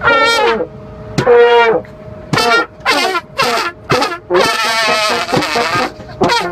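Trumpet and tenor horn playing a Balkan-style brass melody in short, loud phrases, several notes bending down in pitch, with brief gaps between phrases.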